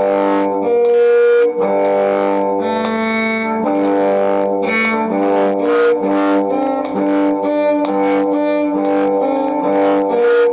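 Bowed string instrument playing sustained double stops, two notes sounding together, with the notes changing every second or so, over an accompaniment with a steady beat.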